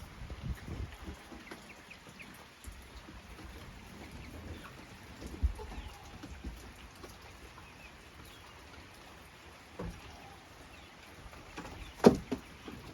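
Chickens clucking quietly with scattered short calls, and a single sharp knock near the end.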